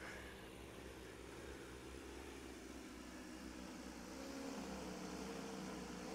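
Large multirotor drone's four 80 kV T-Motor U8 motors and 30-inch carbon propellers humming steadily as it hovers just off the ground on its first flight. The hum rises slightly in pitch and level about four seconds in.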